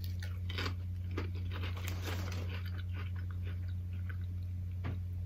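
A person biting and chewing a barbecue potato chip: scattered faint crunches with the mouth, over a steady low electrical hum.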